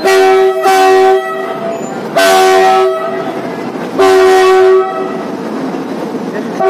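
Horn of a WDG4G diesel locomotive sounding four loud blasts: two short ones back to back at the start, then two longer ones about two seconds apart. A steady background din runs between the blasts.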